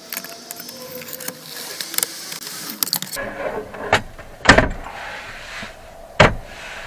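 A wooden tabletop board being handled and set in place in a van: first a stretch of scraping and small clicks, then two sharp wooden knocks, about halfway through and near the end.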